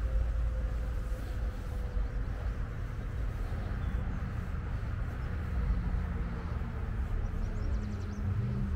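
Steady low rumble with an even hiss over it, typical of distant road traffic heard outdoors. There are a few faint high chirps near the end.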